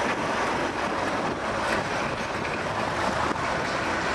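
Class 37 diesel locomotive with its English Electric V12 engine running steadily as it moves slowly along the platform, a continuous even engine-and-wheel noise.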